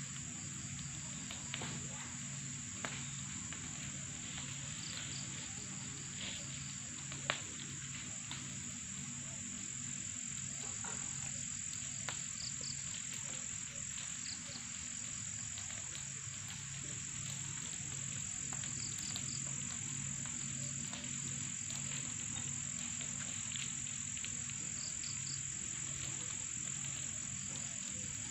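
Evening chorus of crickets: a steady high-pitched trill, with a low repeating pulse beneath it, occasional short high chirps and a few faint clicks.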